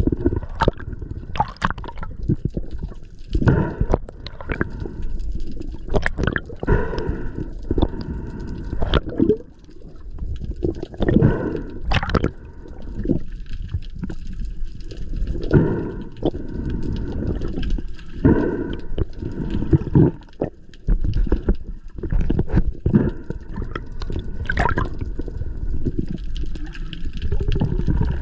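Scuba diver breathing underwater through a regulator: hissing inhalations and rumbling bursts of exhaled bubbles every few seconds.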